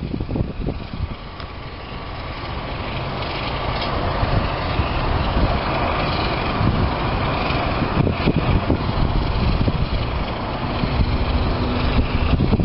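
4-8-0 'Oeste' steam locomotive 240-2215 standing close by: a steady hiss of escaping steam that swells over the first few seconds and then holds, over a low rumble.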